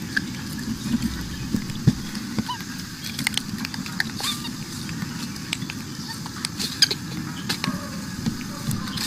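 Macaques giving short, brief calls amid scattered clicks and rustling.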